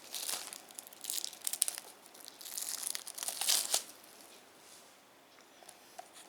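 Packaging crinkling and tearing as a Blu-ray package is opened by hand, in a run of scratchy rustles over the first few seconds. It then settles to faint handling with a few light clicks near the end.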